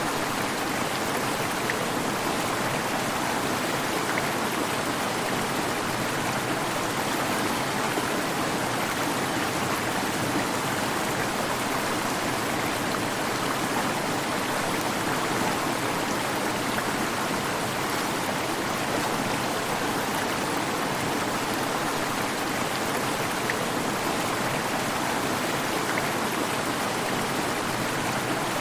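Waterfall: water falling and splashing without a break, a steady, even rushing.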